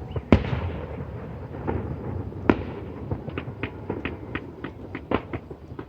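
Fireworks display: sharp bangs of bursting fireworks, the loudest about a third of a second in, others about two and a half and five seconds in, with scattered smaller crackling pops between.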